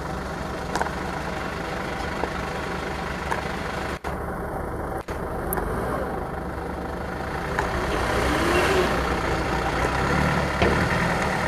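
Dump truck's diesel engine running steadily with the tipper bed raised to dump a load of soil; it grows louder about eight seconds in.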